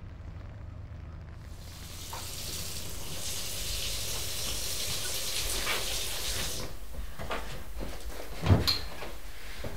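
Water running steadily from a kitchen tap for about five seconds, then turned off. Near the end there is one sharp knock, the loudest sound, followed by a lighter one.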